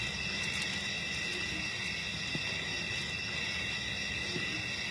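Steady chorus of insects in the bush, a continuous high-pitched shrilling, over a low, even rumble of background noise.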